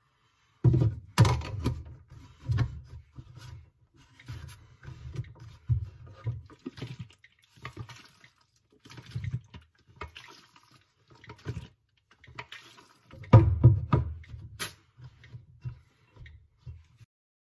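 Film developing tank being capped and agitated: the lid pressed on, the tank turned up and down with developer sloshing inside, and knocked on the bench to free air bubbles from the film. The loudest knocks and thumps come about a second in and again near the end, with handling clatter between.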